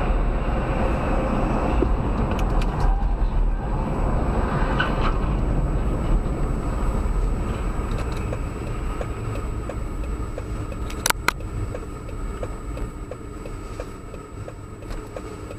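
Car driving: steady engine and road noise that eases off over the last few seconds, with two sharp knocks close together about eleven seconds in.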